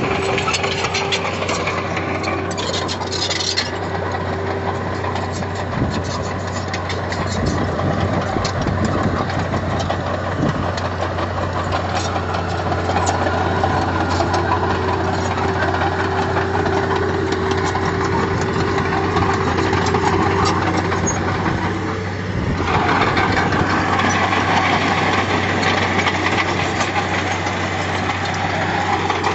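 Heavy-equipment diesel engine running steadily with scattered clicks and knocks. It dips briefly about 22 seconds in, then runs on with more mid-range noise.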